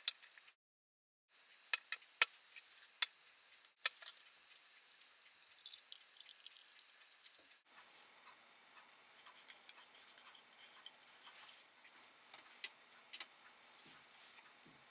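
Sharp clicks and taps of small hard parts being handled, five loud ones in the first four seconds and fainter scattered ticks after, over a faint hiss.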